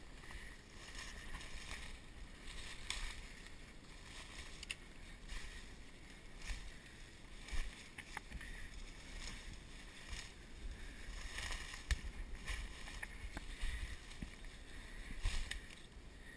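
Footsteps crunching through dry leaves and brush, with twigs and branches scraping past in an irregular rustle.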